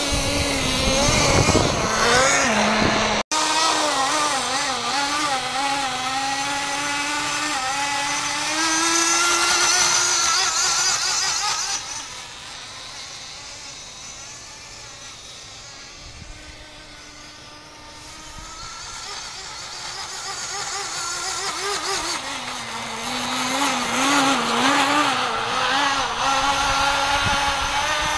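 Nitro RC snowmobile's small glow engine running at high revs, its pitch wavering up and down with the throttle. It fades as the sled drives away about 12 s in and grows louder again as it comes back near the end; there is an abrupt break in the sound about 3 s in.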